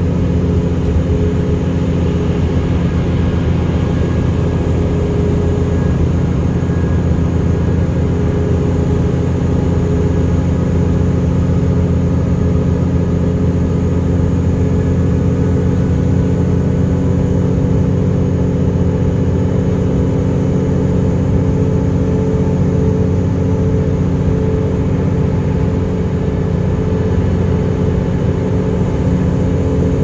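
Bus engine and road noise heard inside the cabin while cruising along a highway: a steady drone with several constant engine tones.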